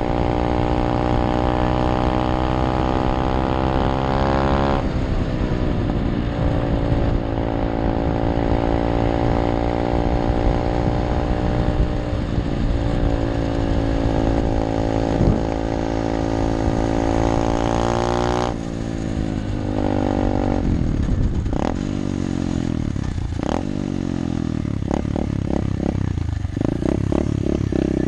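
SSR 125 pit bike's 125cc four-stroke single-cylinder engine under way: the revs climb steadily, drop sharply about five seconds in, climb again in a long pull, then fall away about two-thirds through. The last part has uneven revs with clattering knocks.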